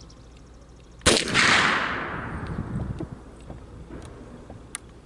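A CVA .32 calibre percussion muzzleloading squirrel rifle fires once about a second in, shooting a patched round ball on a 20-grain charge of GOEX black powder. The sharp report is followed by a long echo that fades away.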